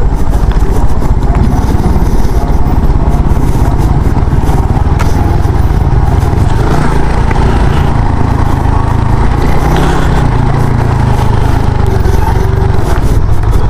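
Motorcycle engine running steadily while riding a rough off-road trail.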